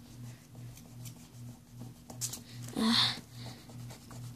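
Fingertip rubbing graphite pencil shading on drawing paper to blend it, in faint repeated strokes, over a low pulsing hum. About three seconds in there is one short, louder noisy sound.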